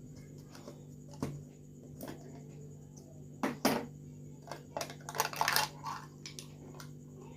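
Kitchen utensils clinking and scraping: a few separate sharp knocks, then a quick run of clatter and scraping about five seconds in, as a spoon and small container are handled while honey is added to burnt banana-peel ash.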